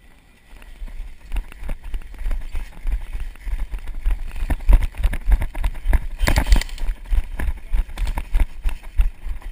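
Running footsteps on grass and dirt, heard as quick, irregular thumps and knocks while the runner's gear and body-worn camera jolt with each stride. A brief louder rush of noise comes about six seconds in.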